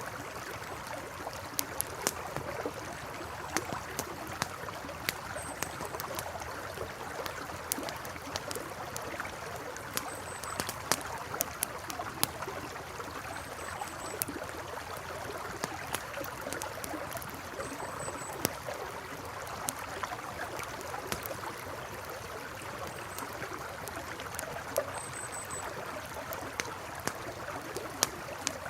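River water rushing steadily under a crackling campfire, the wood giving off irregular sharp pops and snaps. Short faint high chirps recur every few seconds.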